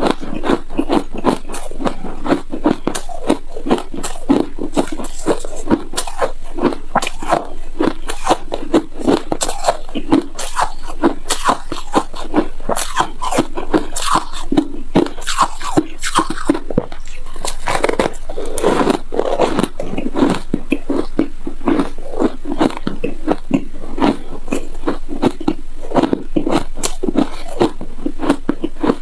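Close-miked biting and chewing of shaved-ice chunks: a steady run of quick crunches with no pauses.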